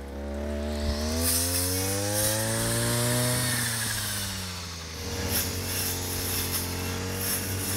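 Brush cutter with a round metal blade cutting tall grass: its small engine revs up over the first three seconds, falls back, then runs steadily.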